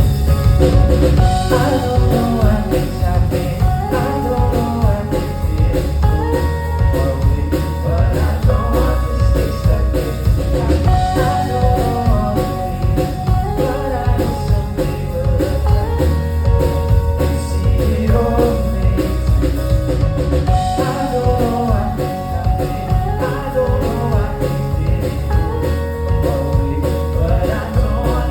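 Live band music: a singer's melody over a drum kit and a steady, heavy bass.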